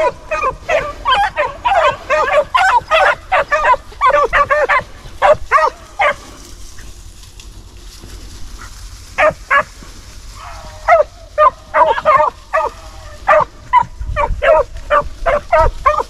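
Hunting beagles baying in quick, repeated barks, with a lull about six seconds in, then barking again with a longer drawn-out bawl about eleven seconds in: the hounds giving voice as they run a swamp rabbit.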